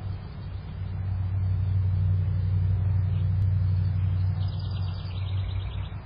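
Steady low rumble, with a short, fast, high-pitched bird trill from about four seconds in until near the end.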